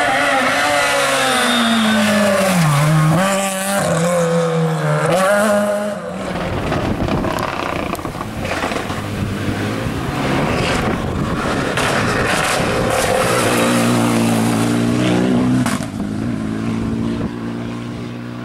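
Rally cars at full speed on a tarmac stage, one after another, engines revving hard. In the first few seconds the engine's pitch drops as the car lifts and brakes, then climbs again through the gears. A rougher, noisier stretch with sharp clicks follows in the middle, and a car revs hard again before it fades near the end.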